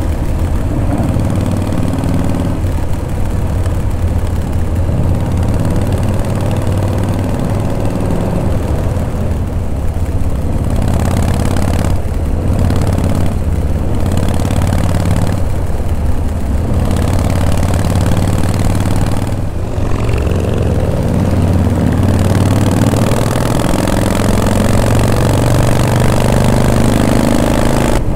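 Vintage Harley-Davidson V-twin motorcycle engine running under way, with wind rushing past; the engine pitch rises over the last several seconds as it accelerates.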